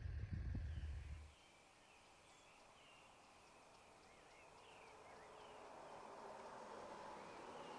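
A low rumble, like a car moving, stops sharply about a second in. It gives way to quiet outdoor ambience with faint, scattered bird chirps, and a hiss slowly grows louder toward the end.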